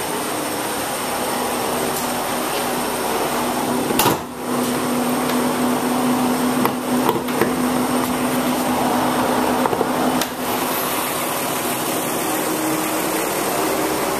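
2001 Volkswagen Jetta's VR6 12-valve engine running with a steady whirring hum, among the unidentified noises the owner is chasing. A sharp knock sounds about four seconds in, with a few lighter clicks later.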